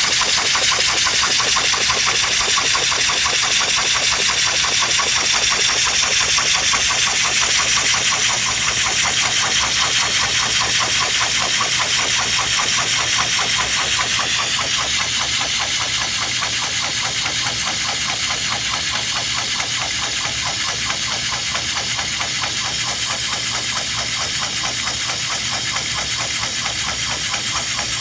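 3D-printed compressed-air engine running fast and steadily: a loud hiss of exhausting air chopped into rapid, even puffs.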